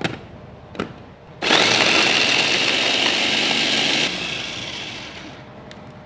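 Electric food processor with a top-mounted motor unit chopping spring onion and carrot: a couple of clicks as the motor unit is seated on the lid, then the motor runs loud and steady for about three seconds and winds down after it is released.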